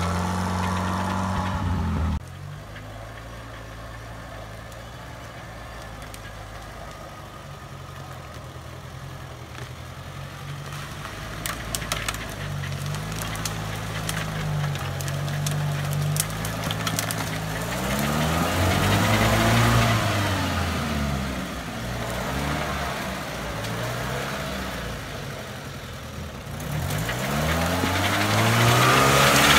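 UAZ-469 engine running as the four-by-four crawls through mud and brush; the engine note drops abruptly about two seconds in. The revs rise and fall about eighteen seconds in and again near the end, and there is a brief cluster of sharp cracks about twelve seconds in.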